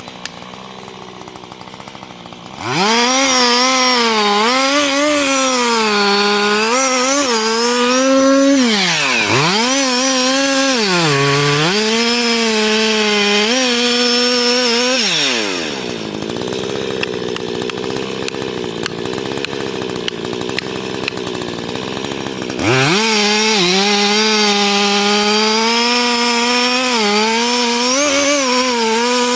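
Chainsaw idling, then revved to full throttle about three seconds in and cutting into wood, its pitch wavering and dipping twice as the chain bogs under load. About halfway through it drops back to idle, then revs up and cuts again for the last several seconds.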